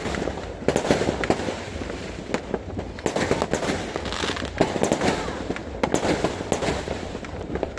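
New Year fireworks going off: many irregular bangs and pops overlapping, with crackling between them.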